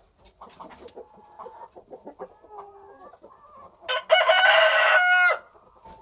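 Kienyeji (indigenous Kenyan) rooster crowing once, loudly, about four seconds in, the call falling in pitch at its end. Quieter clucking from the chickens comes before it.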